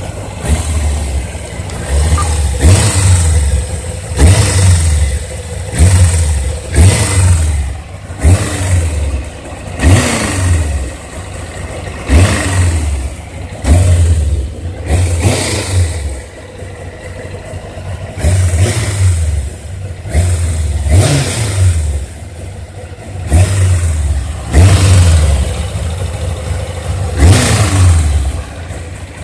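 1996 Kawasaki ZZR600's inline-four engine being blipped repeatedly, about one rev every two seconds, each one rising quickly and falling back toward idle.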